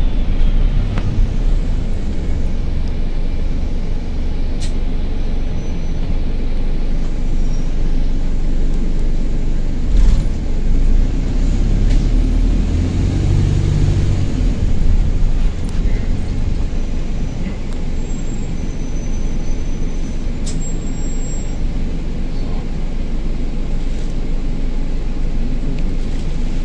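Bus engine running under way, heard inside the passenger saloon, with the heavy rumble of a burst turbo exhaust. The engine note swells for a few seconds about halfway through, and a few sharp clicks or rattles sound now and then.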